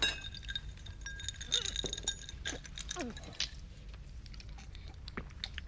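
A clink of glass that rings on for about two seconds, followed by scattered small clicks and clatter.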